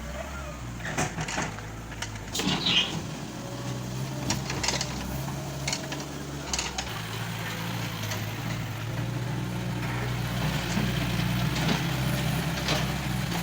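JCB 1CX compact backhoe loader's diesel engine running steadily, with several sharp knocks and clanks in the first half, getting somewhat louder near the end.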